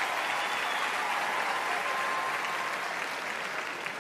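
Theatre audience applauding, easing off slightly toward the end.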